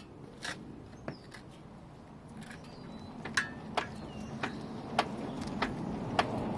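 Irregular sharp clicking, roughly one or two clicks a second, over a low steady hum from a 2012 Hyundai Veloster. The owner cannot place the clicks and has read that this model's transmission is loud and clicky by design.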